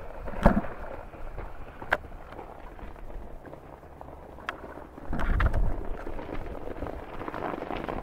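Downhill mountain bike coming down a dirt trail, its tyres crunching on loose ground, with a few sharp clicks and a louder rumble about five seconds in, the noise building near the end as the bike comes closer.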